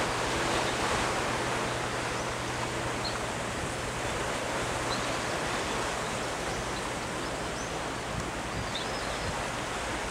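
Steady wash of sea surf, with a faint low hum that fades out about halfway and a few short, faint high chirps.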